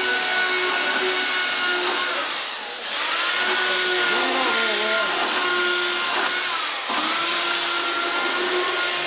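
Electric hand power tool running with a steady whine and hiss. Twice, about three seconds in and again near seven seconds, it slows as the trigger is let off, then spins back up to speed.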